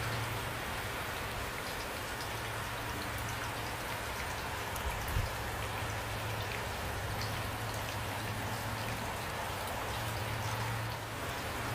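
Steady rain falling, with individual raindrops ticking through it and a steady low hum underneath. A single dull thump comes about five seconds in.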